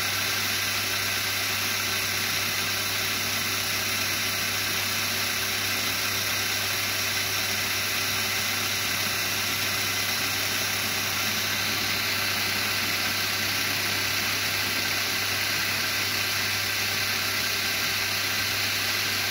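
Märklin 3048 HO-scale BR 01 model steam locomotive running steadily on a roller test stand: its electric motor and gears whir evenly while its driving wheels spin on the rollers, over a steady low hum.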